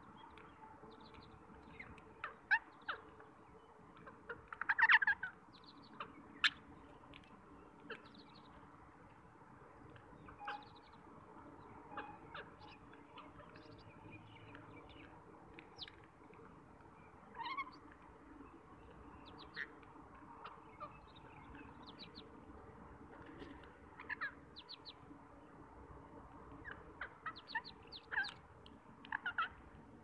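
Rose-ringed parakeets feeding, giving scattered short calls mixed with clicks, with a louder flurry of calls about five seconds in.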